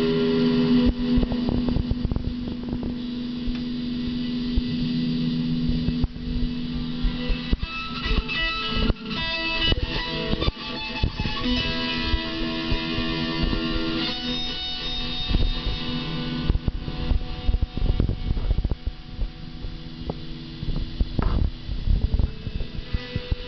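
Guitar strings plucked and tugged by a cat's teeth: uneven twangs and knocks with no steady rhythm, and notes left ringing between them.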